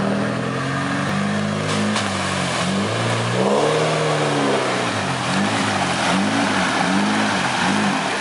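UAZ off-road vehicle's engine revving up and down over and over, with one longer swell midway and then quick, regular throttle bursts.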